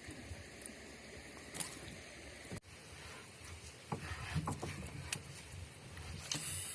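Faint scattered knocks and handling noises, with a few louder low thumps in the second half.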